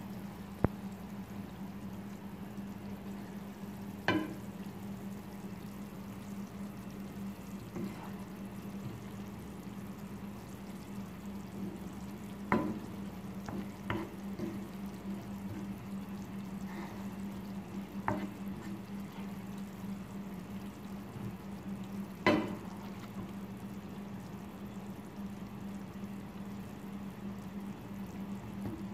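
Chopped chilli and garlic sizzling gently in oil in a frying pan, with a steady low hum underneath. A wooden spatula stirs the mixture and knocks against the pan about seven times, a few seconds apart.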